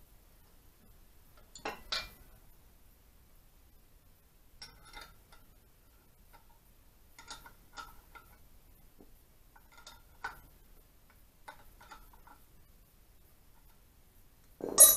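Ring spanner clicking and clinking on the small tie-bolt nuts of an Ariel motorcycle crankcase as they are nipped up: scattered light metallic clicks every second or two, with a pair of louder ones about two seconds in and one sharp clank, the loudest sound, near the end.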